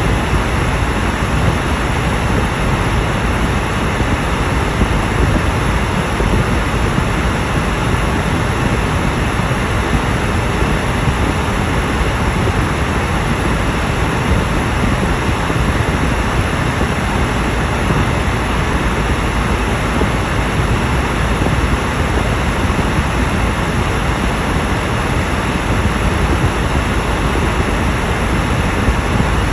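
Steady rushing road and tyre noise inside a car's cabin while driving at highway speed.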